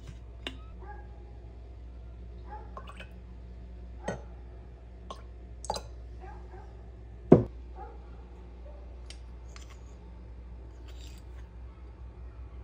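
Kitchen handling sounds: the metal screw cap of a glass bottle is twisted off, then a metal teaspoon clicks against glass a few times, the sharpest clink about seven seconds in. A steady low hum runs underneath.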